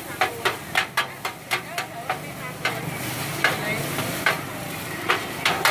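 Metal spatula scraping and clacking against a large shallow steel pan while rice pin noodles are stir-fried, over the sizzle of the frying. The strokes come about four a second at first, then more slowly and spaced out in the second half.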